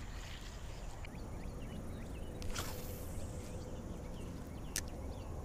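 Pondside ambience: many short, faint bird chirps over a low, steady rumble of wind on the microphone, with two sharp clicks, one about halfway through and one near the end.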